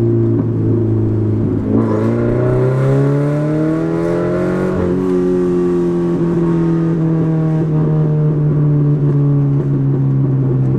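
Subaru BRZ's flat-four engine running loud through a catless front pipe, with the exhaust now basically straight-piped. It runs steadily, then rises in pitch as the car accelerates from about two seconds in, and holds at a steady higher pitch from about five seconds in.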